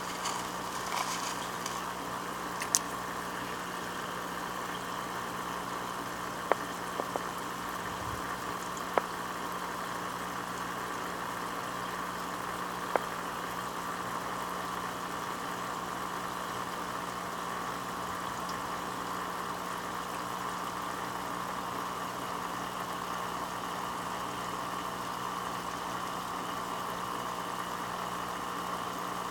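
Steady electrical hum with a hiss over it, like a small motor or pump running without a break. A handful of short, sharp clicks stand out over the first half.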